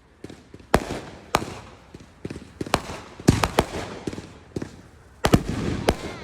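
Fireworks going off: a string of sharp bangs at irregular spacing with crackling between them, the loudest bang about five seconds in.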